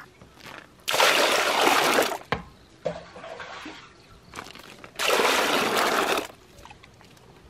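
Water pouring into a plastic basin of foaming milk mixture, in two pours of about a second and a half each, the liquid frothing up as it is diluted.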